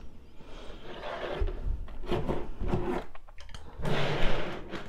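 Rustling and handling noises as crafting materials are moved about on a work surface, in three short spells, the loudest near the end.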